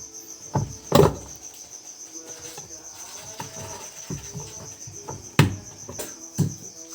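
A steady, high, finely pulsing insect trill, typical of a cricket, runs throughout. Over it come several sharp knocks, the loudest about a second in and about five and a half seconds in.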